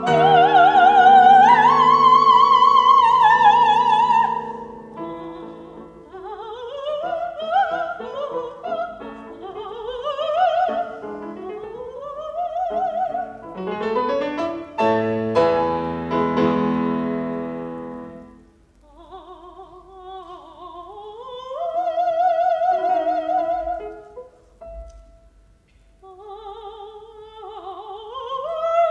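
Operatic soprano singing over grand piano accompaniment: high held notes with wide vibrato at the start and again in the second half. Through the middle the piano plays rapid rising runs while the voice rests.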